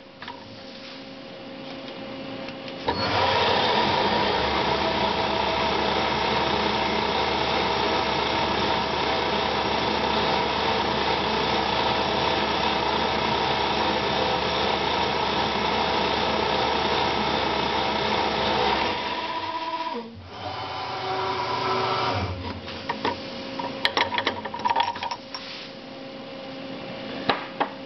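Milltronics CNC mill spindle comes up to speed about three seconds in and runs with a steady hum and hiss while drilling the two bolt holes in an acrylic part. It stops about twenty seconds in. A quieter machine sound and a few clicks follow near the end.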